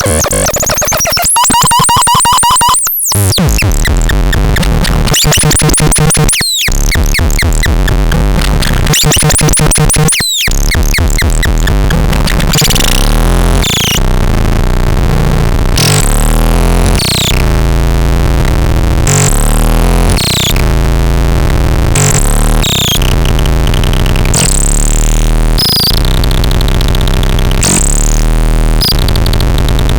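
Electronic synthesizer playing loud, noisy sweeping tones that break off briefly a few times in the first ten seconds. From about twelve seconds in, it plays a stepping low bass pattern under short high chirps that swoop up and down.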